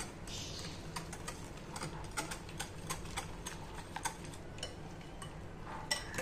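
Metal spoon clinking and scraping against a glass bowl while whisking an egg and chopped-vegetable batter: a quick, irregular run of light clicks.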